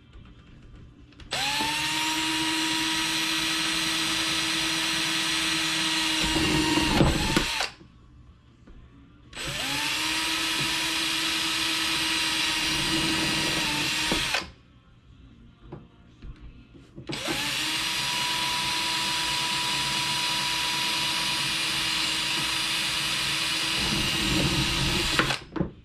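Power drill running at steady speed in three separate runs of several seconds each, spinning up quickly each time, as it drills mounting holes for roof rails through an RC truck body.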